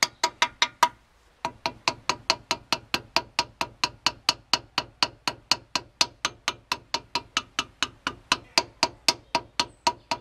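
Standard steel hammer tapping a hollow clay brick down into fresh mortar, a quick steady run of sharp knocks about four or five a second, with a short pause about a second in.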